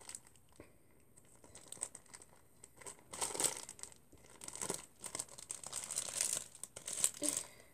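Plastic zip-lock bag holding yogurt crinkling in irregular bursts as it is handled and worked to push the liquid down into one corner. It starts about two seconds in and is loudest in the middle and near the end.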